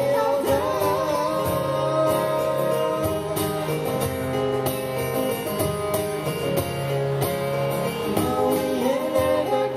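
Live acoustic band: two acoustic guitars strumming chords, a cajón tapping a steady beat, and sung vocals over microphones.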